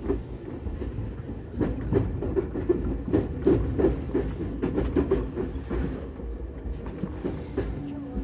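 Tokyu Tamagawa line electric commuter train's wheels clacking over switches and rail joints as it runs through a station throat, heard from inside the driver's cab. A run of irregular clacks, busiest in the middle, over a steady low running hum.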